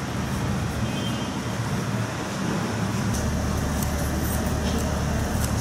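Steady road traffic noise, a constant rumble of passing vehicles, with a few faint clicks in the second half.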